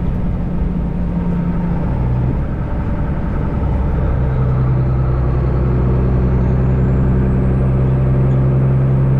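Semi truck's diesel engine running on the road, heard inside the cab. Its drone steps to a lower pitch about four seconds in and grows slightly louder, with a faint high whine rising in the second half.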